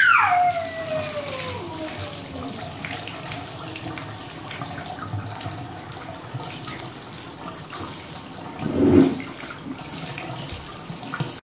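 Water running from a bathtub faucet onto a soiled cloth diaper held under the stream to rinse it. It starts with a high squeal sliding down in pitch, and a brief louder burst comes about nine seconds in.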